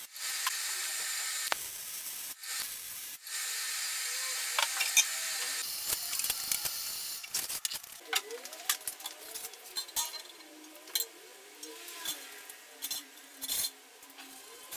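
MIG welder arc crackling and hissing on steel subframe tubing, in a few runs with brief pauses between welds. It stops about seven seconds in, leaving quieter scattered clicks and handling sounds.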